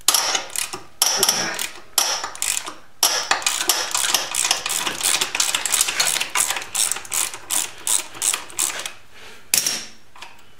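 Ratchet wrench clicking as it backs a nut off an engine mount bolt: a few separate strokes about a second apart, then fast, continuous clicking for several seconds, and one last stroke near the end.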